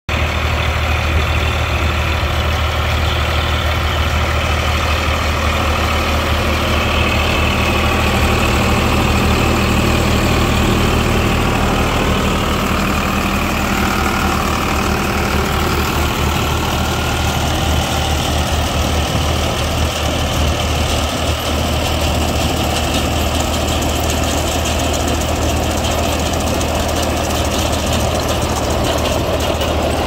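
Tractor engine running steadily, driving a Shaktiman Grimme potato harvester, with the harvester's mechanical clatter over the engine drone.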